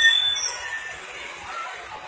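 High-pitched note of a bus's telolet horn, ending about a quarter-second in, followed by traffic noise with a few faint, shorter tones.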